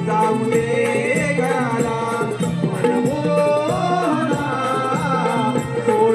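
Live Konkani naman folk music accompanying a gaulan song: a hand drum keeps a steady rhythm under a winding melody line.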